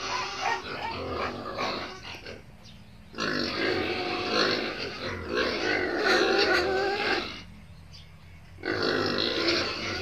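Pigs squealing in long loud stretches, broken by two short pauses, about two and a half seconds in and again about seven and a half seconds in.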